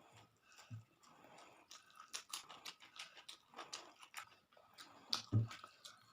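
Close-miked eating sounds: chewing and mouth smacks with many small crackly clicks, and a heavier smack about five seconds in.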